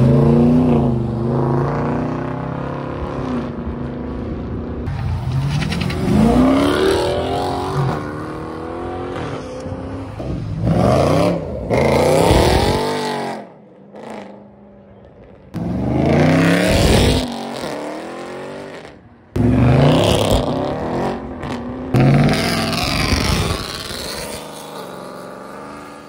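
Dodge muscle cars, a Challenger and a widebody Charger, accelerating hard past one after another, their engine notes rising as they pull away. Several passes are cut together, with abrupt breaks between them.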